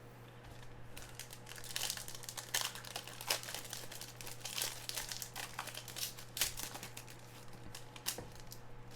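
Foil wrapper of a trading card pack crinkling in the hands, a run of irregular crackles.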